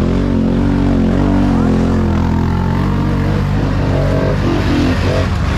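ATV engine running under way, its pitch rising and falling with the throttle.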